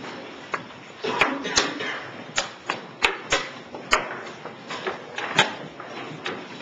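Wooden chess pieces set down on the board and the chess clock pressed, a quick irregular run of about a dozen sharp clicks and knocks.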